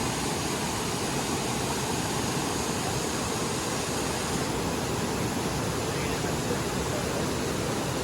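Steady rush of a waterfall.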